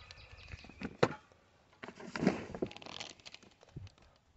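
Rustling and crinkling of a tent's packaging being handled, with scattered light taps and knocks; the sharpest tap comes about a second in and a longer rustle a little after two seconds.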